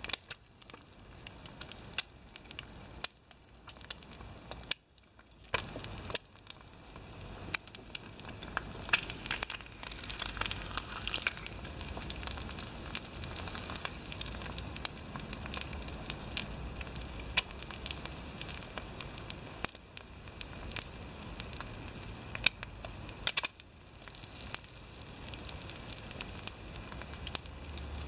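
An egg frying in a small pan on a wood-burning rocket stove: a steady sizzle with frequent sharp pops and crackles from the pan and the burning wood.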